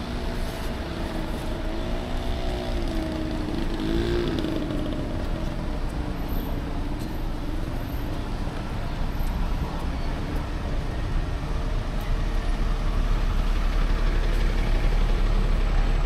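Road traffic: motor vehicles passing on a busy street, with a low rumble that grows louder over the last few seconds.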